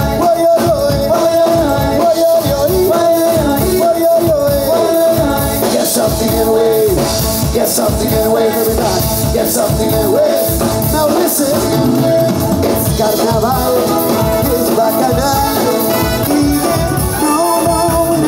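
Live band playing an upbeat Latin-style number with trumpet, guitar, keyboard and drums, with some singing.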